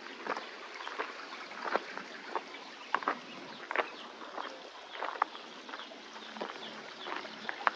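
Footsteps of someone walking on a path, a short crisp step about every two-thirds of a second.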